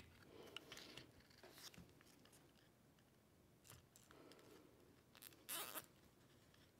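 Faint rustling and light clicks of small crossover parts being handled. About five seconds in comes a short zipping rasp: a nylon zip tie pulled tight to fasten a capacitor to the crossover board.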